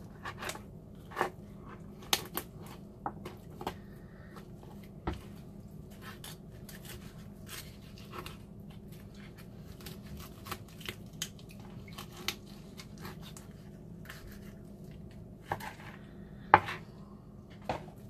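Chef's knife cutting and scraping on a plastic cutting board while deboning raw chicken thighs: scattered sharp taps and clicks, with one louder knock near the end, over a steady low hum.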